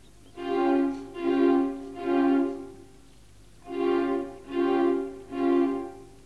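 Background music: a slow melody of held notes, played as two phrases of three notes with a pause of about a second between them.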